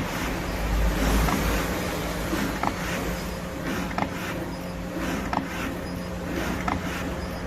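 Cake-cutting machine running: a steady motor hum with a short tick repeating evenly about every second and a third.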